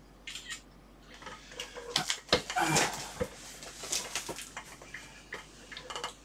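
A large cardboard box being handled and shifted: irregular rustling, scraping and clicks, with two dull thumps about two and three seconds in.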